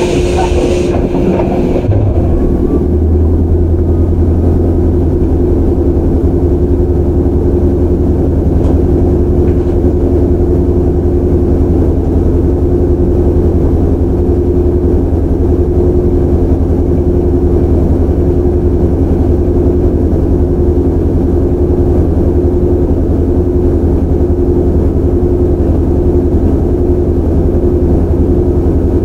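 Onboard sound of a resistance-controlled 413 series electric train (motor car KuMoHa 413-3): a brief hissing burst at the start, then a steady low hum with two steady tones above it, unchanging in pitch.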